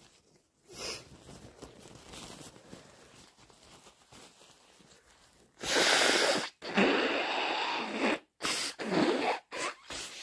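A person with a congested, snotty head cold blowing their nose forcefully: two long noisy blows a little past halfway, then several shorter ones in quick succession.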